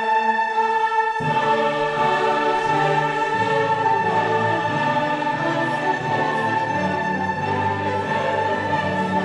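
Orchestral music with a choir singing, in sustained chords.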